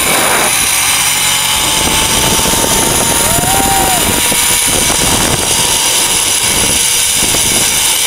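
Zipline trolley pulleys rolling fast along a steel cable, a loud steady rushing whir mixed with wind buffeting the microphone, with a faint thin whine riding over it.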